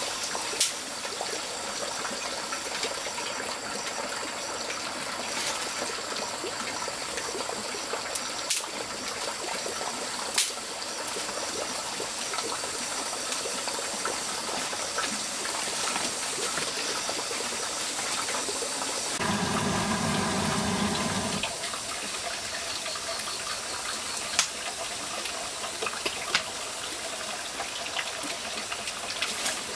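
Steady rush of running water, with a few sharp clicks and snaps of dry sticks being laid into a stone stove. About two-thirds of the way through, a low hum lasts a couple of seconds.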